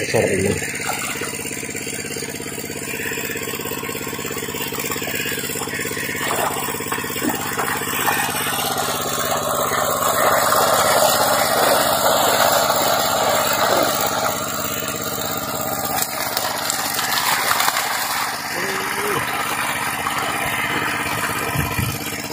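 A small engine running steadily at a constant pitch, with people talking in the background.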